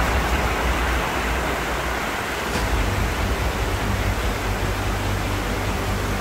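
Steady rushing noise of running water, an even hiss with a low hum beneath it.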